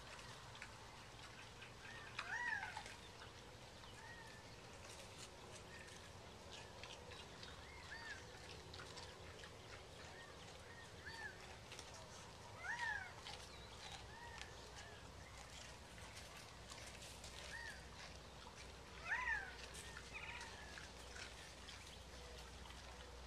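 Faint animal calls: short arched notes repeated every second or two, three of them louder and closer, over quiet outdoor background.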